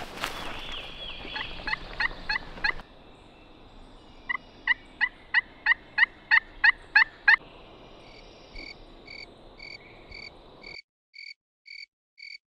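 A wild turkey yelping: runs of short, evenly spaced notes, about three a second, the loudest run in the middle. Fainter, regularly spaced high calls follow near the end.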